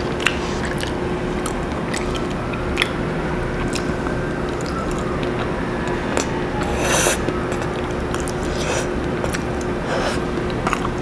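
Close-miked mouth sounds of a person eating spaghetti: chewing with small wet clicks, and a louder slurp of noodles about seven seconds in, over a steady background hiss and hum.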